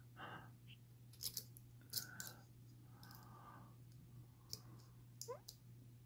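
Faint, scattered small clicks of a lock pick working the pin stack inside a padlock's keyway while the pins are being set one by one, over a faint steady low hum.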